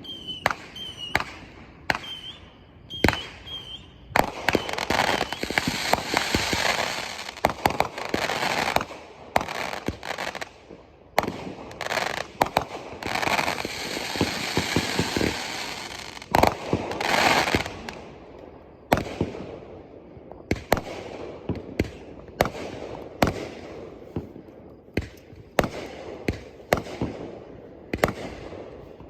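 Fireworks going off: a string of sharp bangs, with two stretches of dense crackling in the middle, then separate bangs about once a second near the end.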